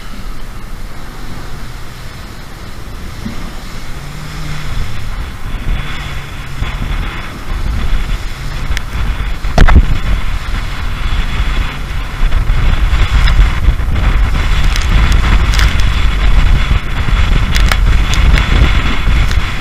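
RIB running hard through rough sea: strong wind buffeting the microphone over the rumble of the hull and the Mercury SeaPro 250 V8 outboard. Several sharp knocks as the boat slams into waves, the loudest about halfway through, and it grows louder in the second half.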